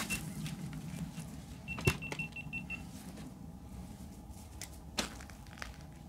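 A quick row of about seven short electronic beeps at one pitch, lasting about a second, with a sharp click among them and another about three seconds later, over a faint low rumble.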